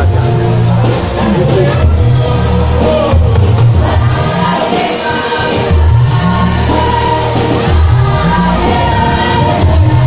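Youth choir singing through microphones, backed by an electronic keyboard with a heavy bass line.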